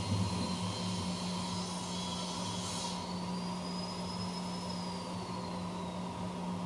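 CNC machine running: a steady low motor hum, with a high whine that comes in about halfway, rises slightly, then glides down and fades near the end.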